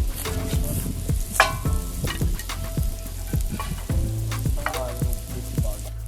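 Food sizzling and crackling as it fries in a pan, with steady music notes underneath.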